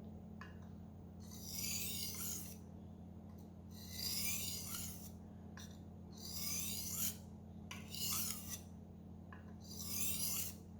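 Knife blade being drawn across a Naniwa whetstone in about five slow strokes, each a gritty scrape of about a second with short pauses between. These are finishing passes to remove the last of the burr.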